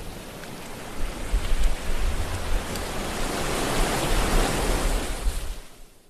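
Ocean surf: a steady wash of breaking waves that swells about three seconds in and fades out near the end.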